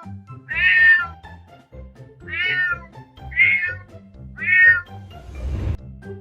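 Kitten meowing four times in quick succession, each short high meow falling in pitch, over background music; a short hiss of noise follows near the end.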